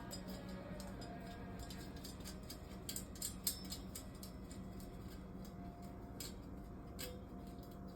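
Faint scattered clicks and light metallic clinks of metal shelving parts and bolts being handled and fitted by hand, a few louder around three seconds in, over a low steady hum.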